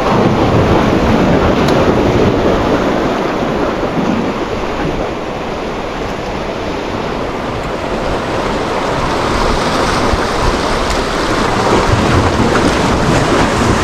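Ocean surf washing with wind buffeting the microphone: a loud, steady rush that eases a little about five seconds in and builds again toward the end.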